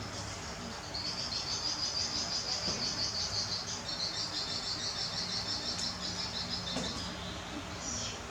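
Insects chirping: a fast, pulsing, high-pitched trill that starts about a second in and fades near the end.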